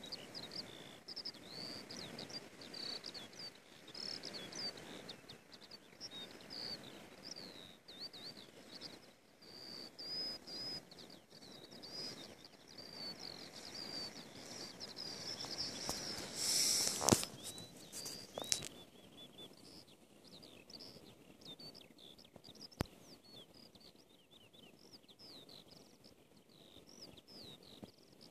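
Eurasian skylark singing its long, unbroken song of quick, varied chirps and trills. About two-thirds of the way through, a short burst of rustling and two sharp knocks cut in over it.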